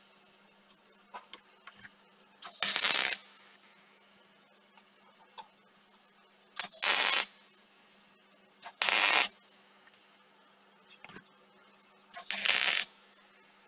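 MIG welder laying short welds along a steel plate seam: four separate bursts of welding arc, each about half a second, with small ticks between them and a steady low hum underneath.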